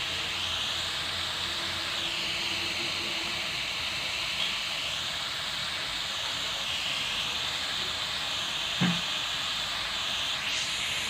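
Onion with grated carrot and zucchini frying in oil in a pan, a steady sizzle as the vegetables wilt. One short knock about nine seconds in.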